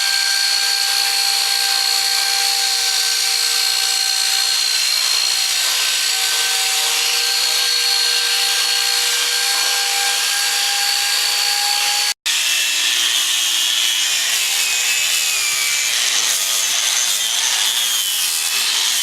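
A power tool running steadily against zelkova wood, with a constant whine over a rasping noise. After a sudden break about twelve seconds in, a power tool works the wood again with a wavering whine.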